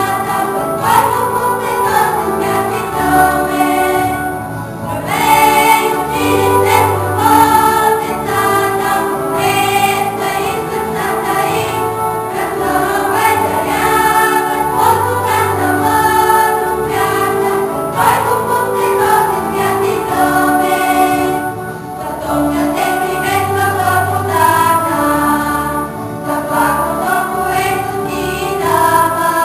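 Music with a choir singing, a sung melody carried throughout.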